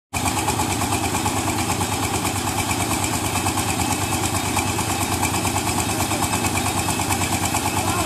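Mini combine harvester's engine running at a steady idle with a fast, even pulse.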